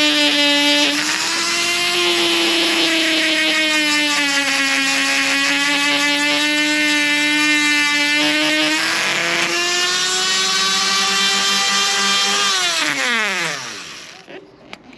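Dremel rotary tool with grinding paper running at high speed against the rusty metal of the window frame, a steady whine that sags and recovers slightly in pitch as it is pressed on. Near the end it is switched off and winds down with a falling whine.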